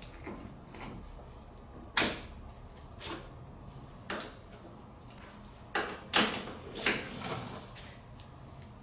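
Metal parts and hand tools being handled and set down: a handful of separate sharp clicks and knocks, the loudest about two seconds in and several close together around six to seven seconds.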